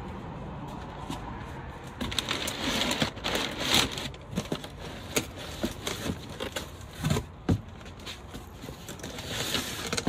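Packaging rustling and crackling, with many short clicks and knocks, as a kit's parts are handled and unpacked; busiest a couple of seconds in.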